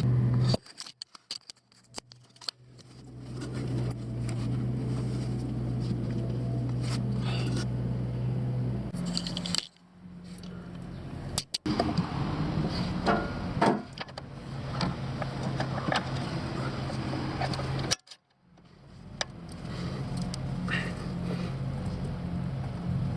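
Metal hand tools clinking and scraping on metal, with scattered sharp clicks over a steady low hum. The sound cuts out abruptly several times.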